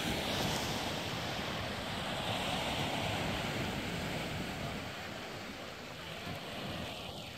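Small waves washing onto the beach: a steady rushing hiss that swells over the first few seconds and eases off later.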